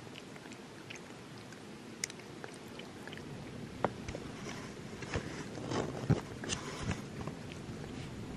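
A cat licking and chewing turkey off a plastic spoon: scattered small wet clicks, then a run of louder mouth smacks in the second half.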